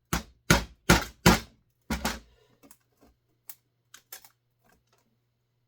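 Hammer tapping on an Allen wrench seated in a grease-packed screw head on a chainsaw: five sharp metallic strikes in quick succession over the first two seconds, followed by a few lighter clicks and taps.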